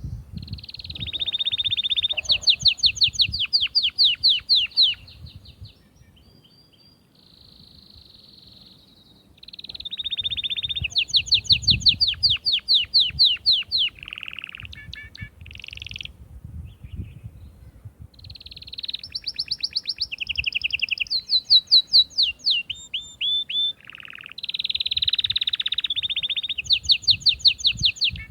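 Domestic canary singing its long song: rapid trills of repeated notes, held for a few seconds each and changing from one trill to the next, in three bouts with short quieter pauses between them.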